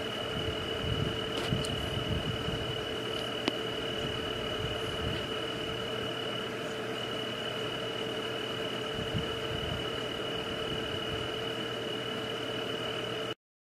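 Night outdoor ambience: a steady high-pitched insect trill with a lower steady drone beneath it and a few faint clicks. It cuts off suddenly near the end.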